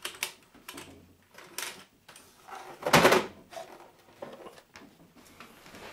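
Clatter and knocks of an old plastic office phone being fetched and handled, with one louder thump about halfway through.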